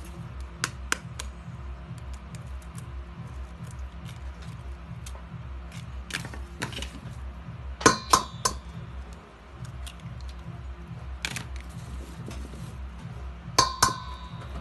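Eggs cracked against the rim of a stainless steel bowl: sharp taps, the loudest coming in pairs about eight seconds in and again near the end, each with a short metallic ring. Background music with a steady low beat runs underneath.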